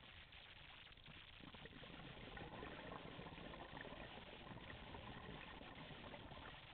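Scuba diver's regulator exhaust bubbling, heard underwater through a GoPro helmet camera's housing. It is faint, swells about a second and a half in and eases off near the end, like one long exhalation.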